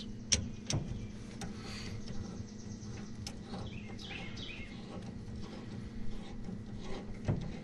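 A screwdriver turning the screw of a worm-drive hose clamp on a rubber heater hose, making scattered faint clicks. Birds chirp in the background over a faint steady hum.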